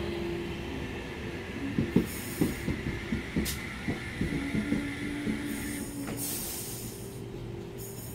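NSW TrainLink H set (Oscar) double-deck electric train slowing along the platform as it arrives, with a steady whine and a run of sharp wheel clicks between about two and five seconds in. A higher whine stops about six seconds in.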